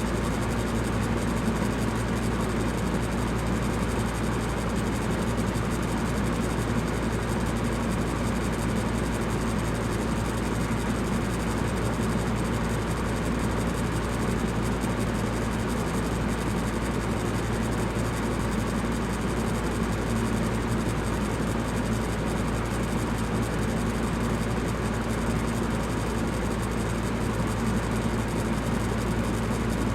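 Electric fan running steadily: an even rushing of moving air over a low, constant motor hum.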